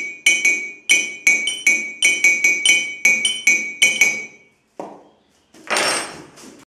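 Two ceramic mugs struck with metal spoons in a quick, even rhythmic pattern of bright, ringing clinks, about four to five strikes a second, that stops about four seconds in. A short knock and a brief rattle follow near the end.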